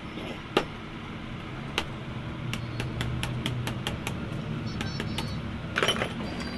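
Hammer striking a screwdriver held against the top of a Maruti Suzuki Ertiga gas shock absorber clamped in a vise, metal-on-metal taps during repair of the leaking shock. Two single strikes about a second apart, then a quicker run of light taps about four a second, and a louder short clatter near the end.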